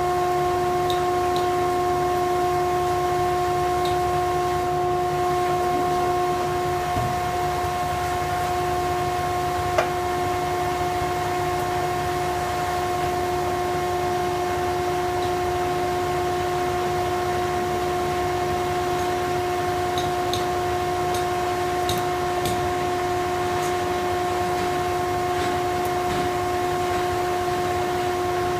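Thickness planer running steadily with a constant whine of one pitch over a low rumble, with no change in load.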